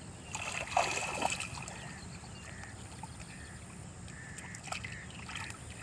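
Water splashing and trickling, with a louder splashing burst about a second in, over a steady low rumble and faint repeated high chirps.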